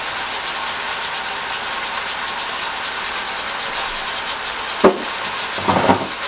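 Chicken and diced onions sizzling steadily in a stainless steel frying pan, with a sharp knock about five seconds in and a brief clatter near the end.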